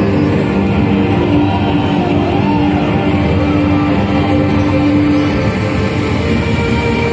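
Loud show music playing steadily, with long held notes.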